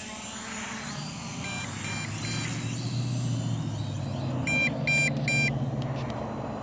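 Small quadcopter drone's motors humming as it descends and sets down on its own, with groups of three short electronic beeps, a faint group early and a louder group about halfway through.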